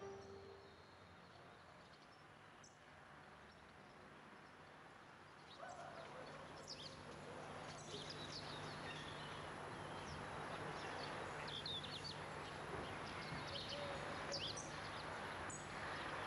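Outdoor ambience with a steady low hum and many short, high bird chirps. It comes in about five seconds in, after a near-silent stretch.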